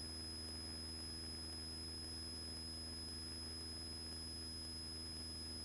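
Cessna 172's engine droning steadily in flight, heard low through the cockpit intercom recording, with a thin steady high-pitched electronic whine over it.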